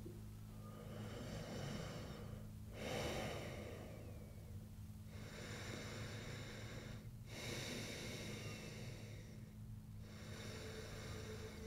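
A person breathing heavily, slow loud breaths in and out about every two seconds, over a steady low hum.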